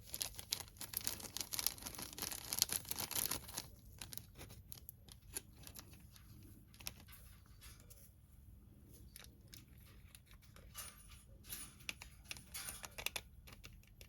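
Packaging crinkling and rustling as it is handled, with many small clicks and taps: a busy stretch in the first few seconds, a few scattered ticks, then another busy stretch near the end.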